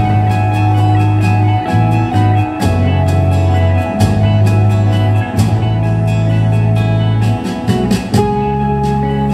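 Music played through a pair of B&W DM 601 S2 bookshelf speakers, with long held bass notes and a steady beat, picked up by a phone's microphone.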